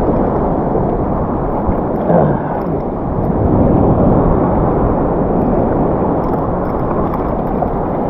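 Surf and water sloshing against a waterproof camera housing, heard as a loud, muffled, steady rumble.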